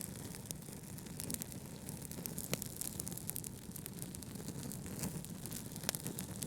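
Wood fire crackling: a steady low rumble of flames with frequent small crackles and a few sharper pops.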